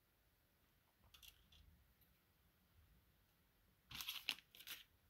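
Clear plastic bag being handled and crinkling: a few faint rustles about a second in, then a louder cluster of short crinkles about four seconds in.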